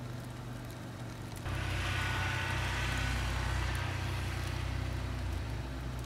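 A car passing on a snowy, slushy street: its tyre and engine noise comes in suddenly about a second and a half in and fades near the end, over a steady low hum.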